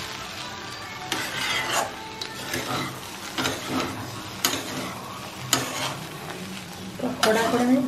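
Metal spatula scraping and turning potato and pea samosa filling in a kadai, with a steady sizzle of frying underneath. The scrapes come irregularly, about one a second, with a cluster near the end.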